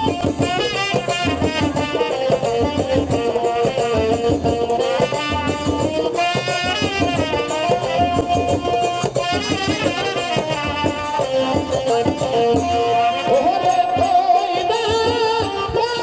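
Bengali jatra folk music: a melody over steady drumming and percussion.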